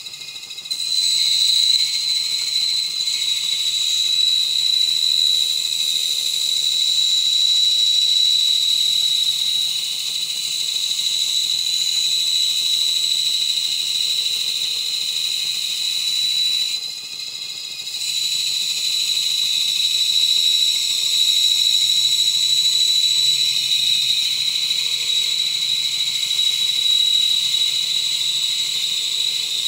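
Bandsaw resawing a board of 2x12 dimensional lumber into thin planking stock: a steady, high whine of the blade cutting. It starts about a second in, dips briefly about 17 seconds in, then carries on.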